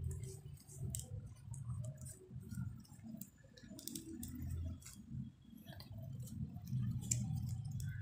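Budgerigars pecking at a corn cob and a leaf: small irregular beak clicks and taps on a hard floor, over a low rumble.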